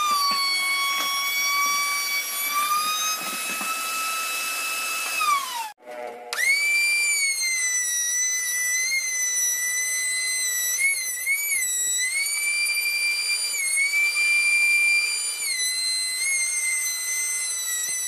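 Electric router motor running with a high-pitched whine, its pitch wavering and sagging under load. About five seconds in the pitch glides down and the sound cuts out, then it starts again straight away at a higher pitch.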